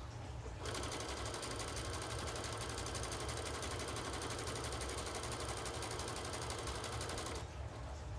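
Brother sewing machine stitching at a steady fast rate, starting about a second in and stopping shortly before the end.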